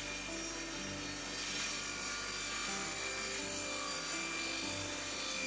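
Small table saw cutting through a wooden furniture panel: a steady, even sawing noise, with soft background music beneath it.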